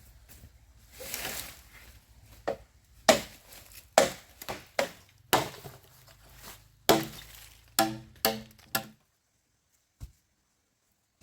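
A run of about ten sharp chopping knocks at uneven spacing; the last few have a short ringing edge, and they stop a couple of seconds before the end.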